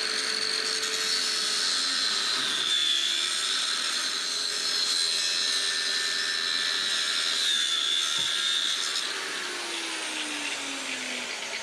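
Angle grinder with a cutting disc running at speed, cutting through a heavy, rusty steel beam with a steady high whine. About three quarters of the way through it is switched off and winds down, its pitch falling steadily.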